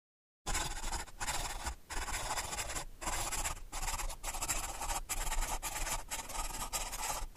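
Scratchy writing strokes on paper, one stroke after another with brief breaks, starting about half a second in.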